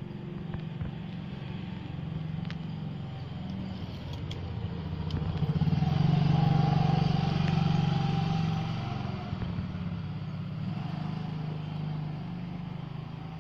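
A motor vehicle's engine running nearby: a steady low hum that grows louder to a peak about halfway through and then fades, as if the vehicle passes by.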